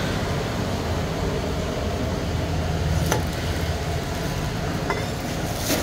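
A motor running steadily with a low hum, with a few light clicks over it.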